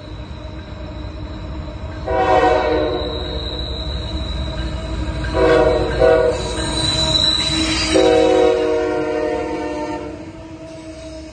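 CSX diesel freight locomotives sounding a multi-chime air horn in several blasts: one long, two short close together, then a final one held about two seconds. Under it the locomotives' engines rumble, growing louder as they approach and pass.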